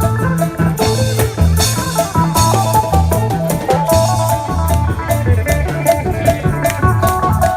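Isan band music: a plucked phin melody over a drum kit and a repeating low bass line.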